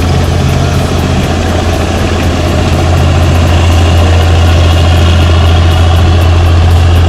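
Bizon Gigant Z060 combine harvester's SW680 six-cylinder diesel engine running while the machine cuts grain, a loud steady low drone over the noise of the working machinery.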